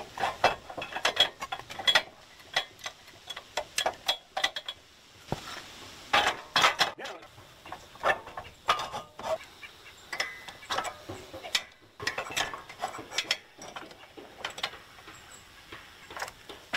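Steel log-lifter bracket, arm and pin clinking and knocking as they are handled and pinned together by hand: irregular metal clicks and taps, some louder clanks around six to seven seconds in.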